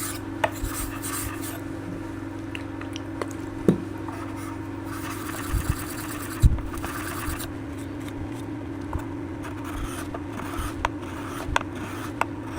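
Light clicks and taps of a block plane blade being handled at the sharpening bench, with about two seconds of scraping a little after five seconds in, over a steady low hum.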